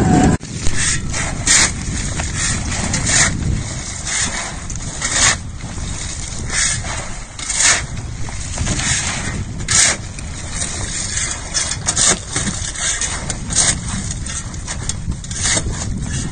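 A metal shovel scraping and scooping through a heap of mussel shells on a boat deck, with a sharp clattering strike every second or two as loads of mussels are shovelled overboard into the sea. A steady low rumble runs underneath.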